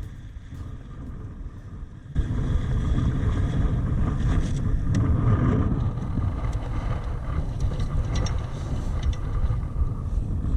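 Wind buffeting the microphone and water rushing past a Laser sailing dinghy in heavy wind, jumping suddenly louder about two seconds in, with scattered splashes and knocks.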